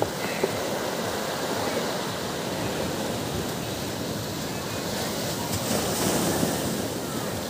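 Small sea waves breaking and washing up a sandy, rocky shore: a steady wash that swells a little about six seconds in.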